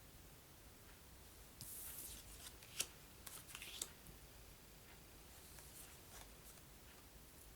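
Paper or card being handled: a short rustle about a second and a half in, with two sharp clicks, then a fainter rustle, all at a low level against room tone.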